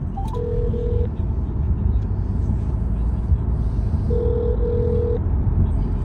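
Telephone ringback tone from a phone on speaker: a short rising blip, then two rings about four seconds apart. Under it is the steady low road rumble of the car.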